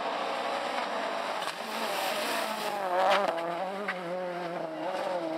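Ford Fiesta RS WRC rally car's 1.6-litre turbocharged four-cylinder engine revving hard, its pitch rising and falling as it works through the gears. About three seconds in it peaks with a few sharp pops.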